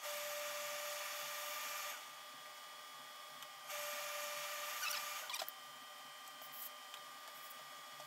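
Hose-fed professional steam iron releasing steam in two steady hissing bursts, the first about two seconds long from the start and the second about a second long near the middle, with a few light clicks of handling in between.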